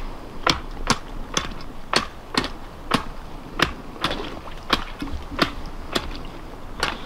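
Steel ice spud bar chopping a hole through lake ice: repeated sharp strikes, about two a second.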